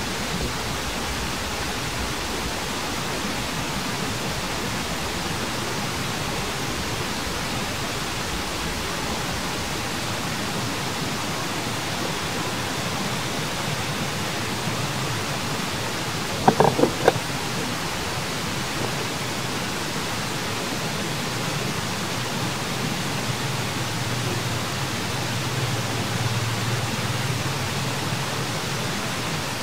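A steady hiss of background noise, with a quick cluster of a few short, sharp sounds about halfway through.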